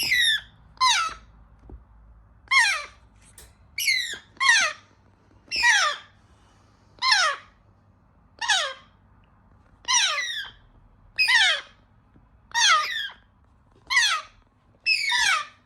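Young African grey parrots giving repeated begging calls: about a dozen short, squeaky cries a second or so apart, each sliding down in pitch, as chicks call for food at feeding time.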